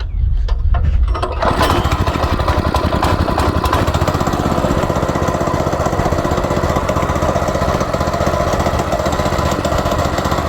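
Go-kart's small pull-start engine running with a fast, even firing rhythm, coming in loud about a second and a half in after a lower rumble.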